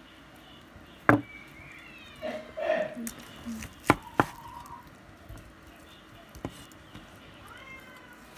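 Cleaver chopping cooked cured pork on a wooden chopping board: a handful of sharp chops, the first about a second in, two in quick succession near four seconds, and a hard one at the very end.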